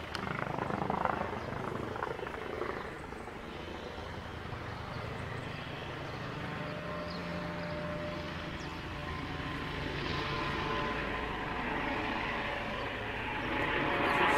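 A helicopter flying around overhead: a steady rotor and engine drone that swells a little near the end.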